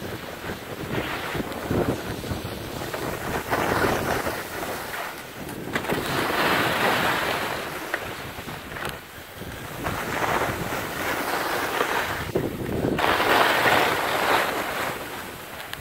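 Wind rushing over the microphone of a moving skier, with skis hissing and scraping on groomed snow in several swells as the turns come and go.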